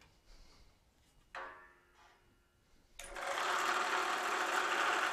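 A metallic clank that rings briefly about a second and a half in, then a metal-cutting saw for aluminum stock starts suddenly about three seconds in and runs steadily.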